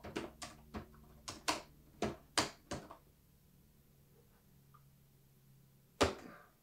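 Typing on a laptop keyboard: a quick run of keystrokes for about three seconds, then a pause and one harder key press near the end.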